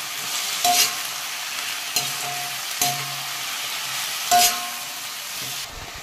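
Fiddlehead fern (lingda) and sliced onions frying in mustard oil in a kadhai, with a steady sizzle. A spatula stirs the vegetables and scrapes against the pan four times, each stroke with a brief metallic ring.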